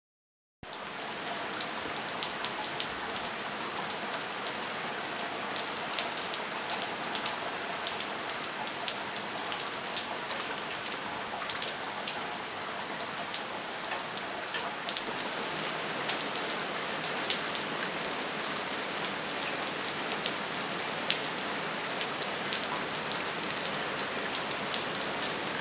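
Heavy rain falling steadily, with many sharp individual drop hits through the hiss; it starts abruptly just under a second in.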